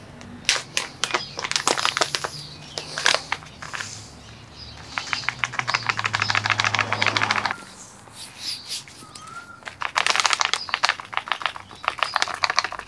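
A shaker bottle of pastrami rub being shaken over a piece of meat: dry rub rattling inside it in three spells of quick shakes, the middle one the longest.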